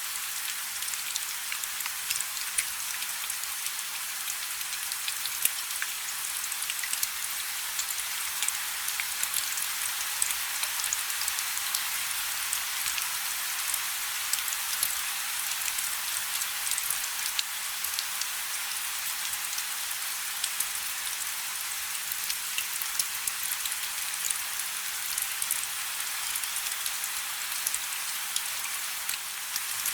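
Steady rain falling, a continuous hiss with many individual drops ticking sharply through it.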